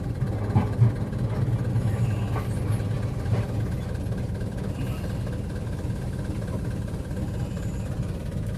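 Heavy diesel truck engine idling steadily, heard from inside the cab, with a few light knocks in the first few seconds.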